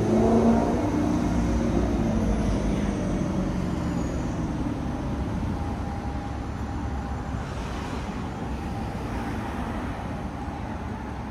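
Street traffic: a motor vehicle passes close by, its engine note falling in pitch as it draws away and fades, over a steady traffic rumble.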